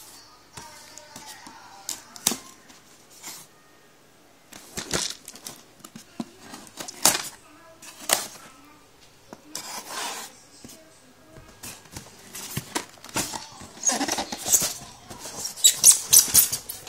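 Cardboard box of an airsoft rifle being handled and opened by hand: scattered knocks, scrapes and tearing rustles of tape and plastic sheeting, busiest and loudest near the end.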